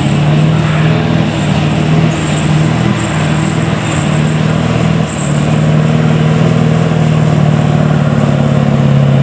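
A Scania R500 truck's V8 diesel engine running hard at high revs under heavy load as the truck drags a pulling sled, with a brief dip about five seconds in before it steadies again.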